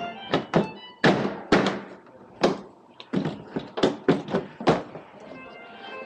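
An irregular series of about a dozen sharp thunks and knocks with a short ringing tail, over background music of short sustained notes.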